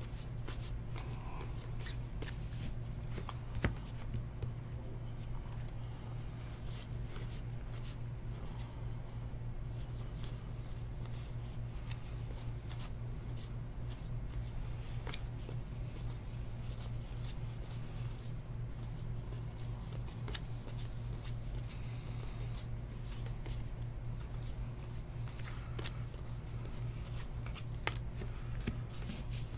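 Baseball trading cards flipped through and slid against each other by hand: faint scattered flicks and slides of card stock over a steady low hum.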